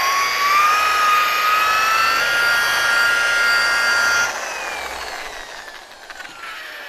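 Electric rotary buffer with a wool pad running at low speed, a steady whine whose pitch creeps up over the first couple of seconds. About four seconds in it is switched off and the whine falls away as it winds down.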